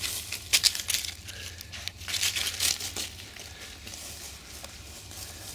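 Dry fallen leaves crunching and crackling in quick, irregular bursts, as from steps or scratching in leaf litter, during the first three seconds, then quieter.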